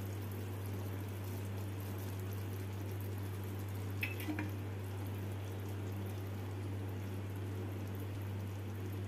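Tomato-and-yoghurt chicken gravy simmering in a nonstick frying pan, a faint steady bubbling over a constant low hum. A brief faint tap comes about four seconds in.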